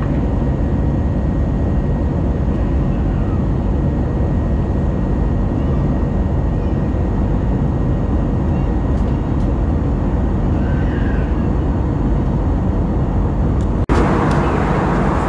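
Airbus A320 cabin noise while climbing: a steady, loud rush of the jet engines and airflow heard through the fuselage. About 14 seconds in it cuts abruptly to a brighter, hissier cabin noise.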